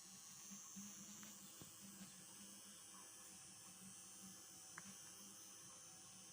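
Washing machine running, heard faintly as a low wavering electric hum over a steady hiss, with a couple of small clicks.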